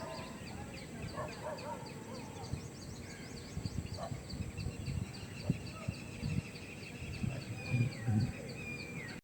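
Birds calling outdoors: a fast series of short, high, downward chirps, a brief cluck-like call near the start, and a long held high note in the second half that drops in pitch at the end, over scattered low thumps.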